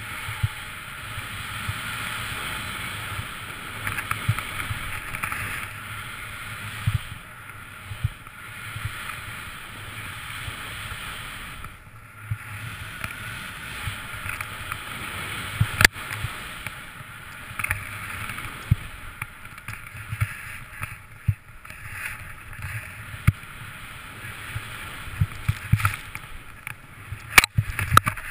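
A snowboard riding through deep powder snow: a steady rushing hiss over a low rumble, with small thumps and two sharp knocks, one about halfway through and one near the end.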